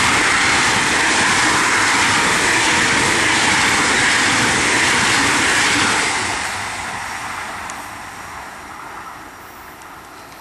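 ICE high-speed train passing close at speed: a loud rushing of wheels and air that holds for about six seconds, then fades away as the train recedes.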